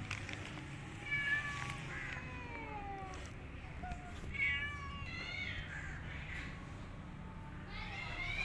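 Other cats meowing several times, drawn-out calls that rise and fall in pitch.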